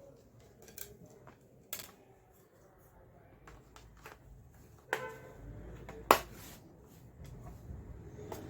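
Scattered small clicks and knocks of plastic and metal laptop parts being handled and fitted back together, with two sharper knocks about five and six seconds in.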